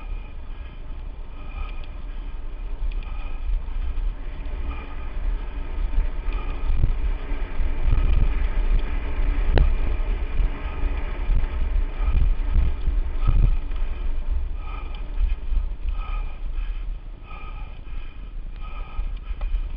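Lapierre Spicy 516 mountain bike rattling and thudding as it rides down a dirt track, under a steady low rumble of wind on the microphone. Sharper knocks come near the middle, the loudest about ten seconds in.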